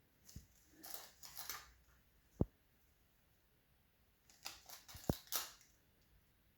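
Small handling noises from food preparation, with light rustling twice and two sharp little knocks, one about two and a half seconds in and one about five seconds in.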